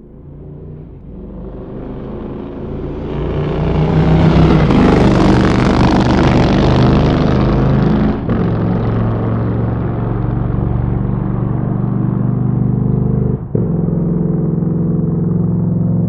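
Motorcycle engine running, swelling in level over the first few seconds to a peak, then holding steady. There is a brief dip about halfway through and a momentary dropout near the end.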